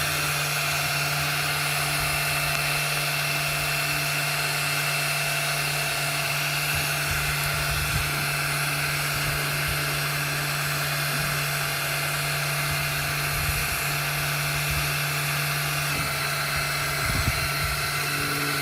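Electric drill running continuously at a steady speed with its trigger tied down, driving a drill-powered water pump that pushes water through a hose. The motor's steady hum and whine holds even throughout.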